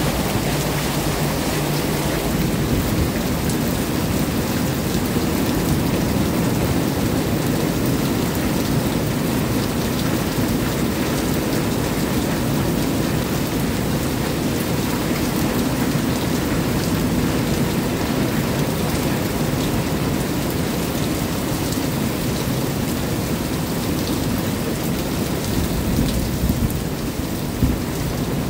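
Rain falling steadily in a thunderstorm, with a low rumble of thunder beneath it and a few louder knocks near the end.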